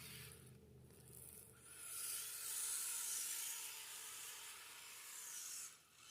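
RC tracked vehicle scraping and churning against a tree it is stuck on, a steady rasping scrape that swells about two seconds in and drops away near the end.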